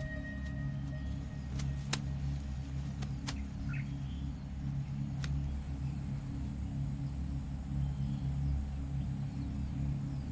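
Outdoor ambience: a steady low rumble underneath, a thin high insect buzz that starts about halfway through, and a couple of short bird chirps.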